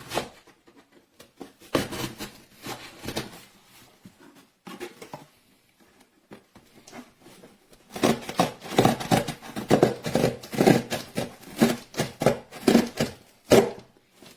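Handling noise of a multi-tool pocket knife: a run of short clicks, scrapes and rubs. They are sparse at first and come in a quick dense run in the second half, then stop sharply.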